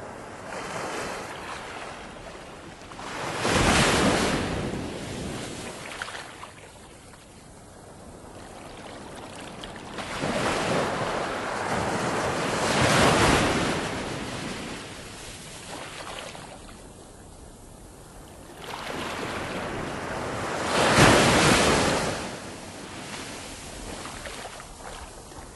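Ocean surf: waves rush in and wash back in a steady hiss, swelling loudest three times, a few seconds in, around the middle, and again late on.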